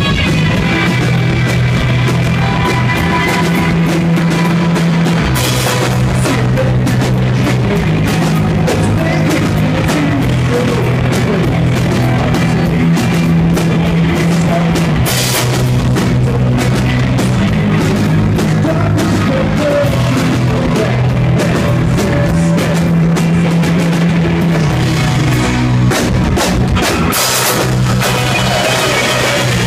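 Live rock band playing loud: strummed electric guitars over a driving drum kit, with low sustained notes that change pitch every few seconds.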